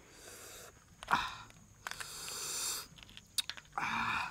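Short breathy hisses and sniffs, with a few light clicks about three seconds in as whole crabs are picked up and turned on a wire grill over charcoal.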